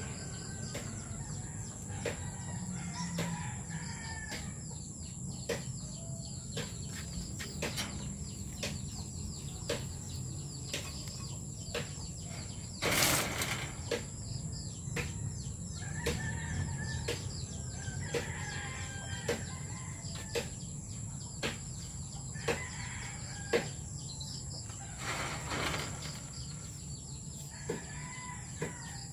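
Birds, likely poultry, calling now and then in the background, over soft rustling and clicking as hands part rabbit fur and dry leaves in a nest box. A louder rustle about halfway through and another near the end.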